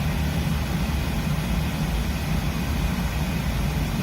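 Oil burner on a boiler firing steadily, a low, even rumble of flame and blower with no banging.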